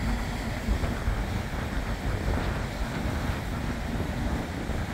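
Wind buffeting the microphone over the steady low rumble of a ferry under way, with water churning in its propeller wake.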